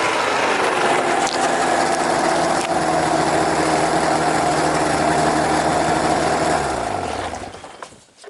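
A small engine running steadily, then switched off about seven seconds in, its pitch falling as it winds down to a stop.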